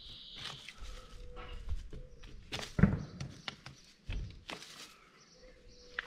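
Weeds being pulled and cut out of an old stone wall: rustling leaves and stems with scattered sharp clicks, and two dull thuds about three and four seconds in.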